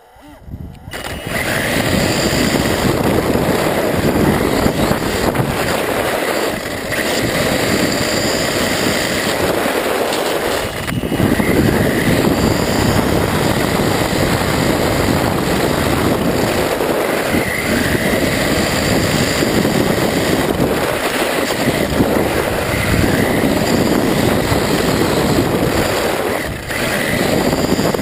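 Small remote-controlled truck carrying the microphone, driving fast over asphalt: a loud, steady rumble of its wheels on the road, easing briefly a few times.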